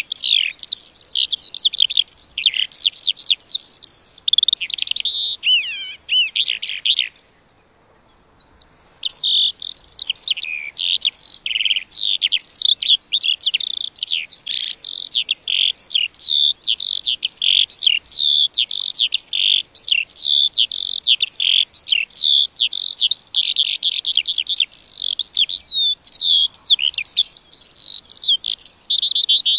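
Lark singing: a long, unbroken outpouring of rapid warbles and trills, stopping briefly about seven seconds in and then starting again.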